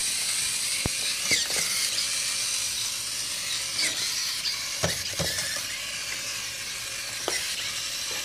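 Continuous-rotation hobby servos driving a small robot buggy, whirring in a few short spurts as it turns and changes speed, over a steady high hiss.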